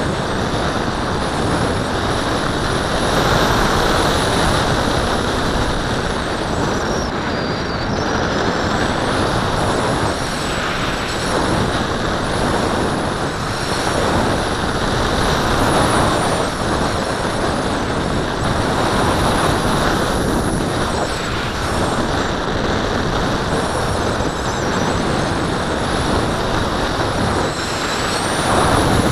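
Wind rushing past the onboard camera of a Tracer RC glider in flight: a steady airflow rush that swells and eases, with a faint high whistle above it that dips and rises in pitch.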